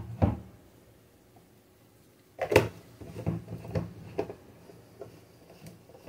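A couple of short knocks at the start, then a cluster of knocks and thumps from about two and a half to four seconds in, the loudest at the beginning of the cluster, with a few fainter ones after.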